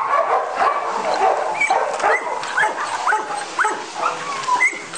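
Several small dogs yipping and whining over one another in quick succession: short high calls that slide up and down in pitch, with an occasional bark, as the dogs get excited over treats.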